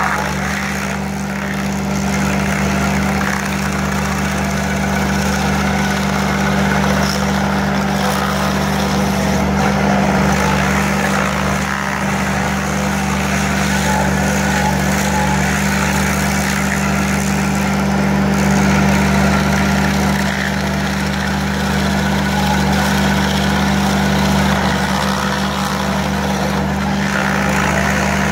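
Ditch Witch SK850 compact tracked loader's engine running steadily, driving a hydraulic stump grinder attachment whose toothed wheel is grinding into a tree stump.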